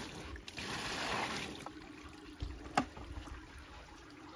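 Water poured from a bucket into a padded carp cradle, splashing onto the mat for about the first second and a half. A single sharp knock follows a little under three seconds in.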